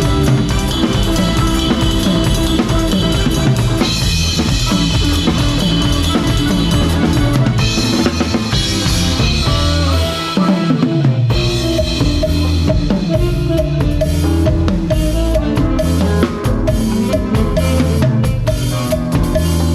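Live band playing a cha-cha, heard from the drum kit, with kick drum and snare hits up front over a bass line and sustained melody instruments. The bass and kick drop out briefly near the middle before the groove picks up again.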